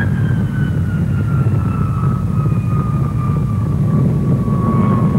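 Avro Vulcan's Bristol Olympus jet engines rolling past: a steady low rumble with a high whistle over it that falls slowly in pitch.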